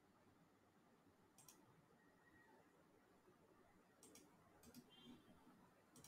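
Near silence: faint room tone with about four quiet computer-mouse clicks, one about a second and a half in and a cluster near the end.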